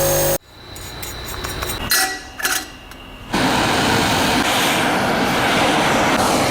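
A power tool running steadily stops abruptly, followed by a few short knocks. From about halfway through comes a loud, steady rushing noise from the restoration work on the rusted metal lamp.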